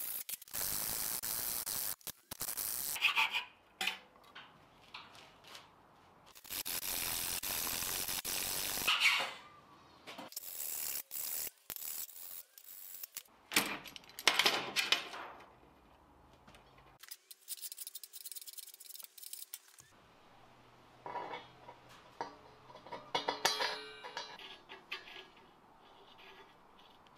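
A run of short metal-shop sounds: stretches of steady hiss, and metal parts clinking and scraping on a steel bench, with quieter gaps between.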